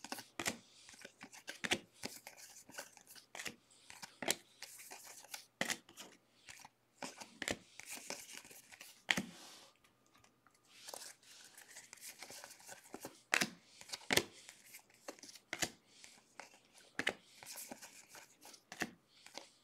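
Baseball trading cards being flipped through and slid off a stack by hand: a run of faint, irregular flicks, slides and taps of card on card.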